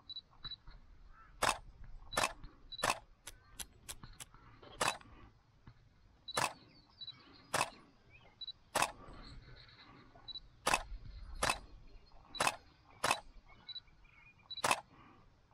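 A series of sharp clicks at uneven intervals, roughly one a second, over faint short high peeps.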